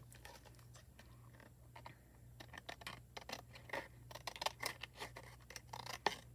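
A paper card panel being trimmed: a run of faint, irregular cutting snips and scrapes that grows busier from about two seconds in.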